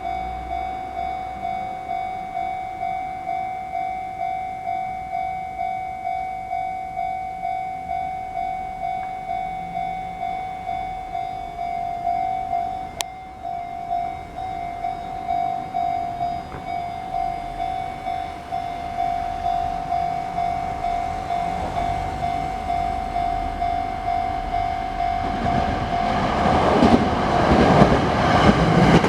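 Level crossing warning bell ringing steadily, about one and a half strokes a second. Near the end, the approaching 285 series Sunrise Express sleeper train's running noise rises and swamps the bell.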